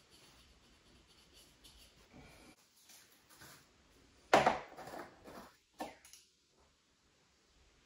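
White PVC drain pipe and fittings being handled on a laminate floor: faint rustling, then a sharp plastic clack about four seconds in and a smaller knock about a second and a half later.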